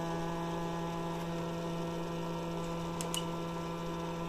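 Stepper motor driven by a homemade voltage-source ('audiophile') driver, turning at a speed in its resonance range: a steady hum with a stack of overtones that cuts off suddenly at the end.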